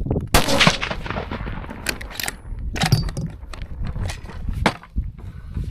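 A single shot from a .308 Ruger Scout rifle with a 16-inch barrel and flash hider, about a third of a second in, followed by several smaller clicks and knocks of handling the rifle. Wind rumbles on the microphone throughout.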